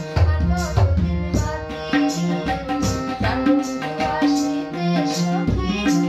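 A woman singing a Bengali folk song to tabla, with low drum strokes and sustained held notes beneath the voice.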